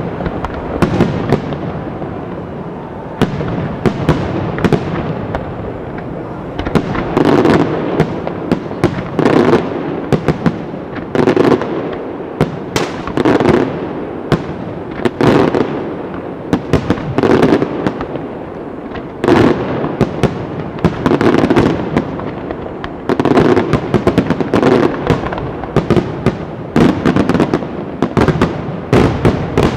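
Aerial firework shells from a Ricasa pyrotechnic display bursting in quick succession, sharp cracks and bangs over a continuous rumble. From about seven seconds in the bursts come in loud clusters roughly every two seconds.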